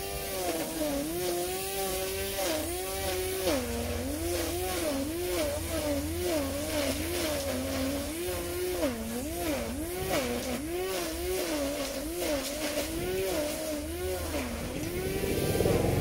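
Small petrol grass-cutting engines running: a line trimmer's engine revs up and dips back again and again, about once a second, while cutting grass. A steadier lower engine hum, fitting the lawn mower, runs underneath.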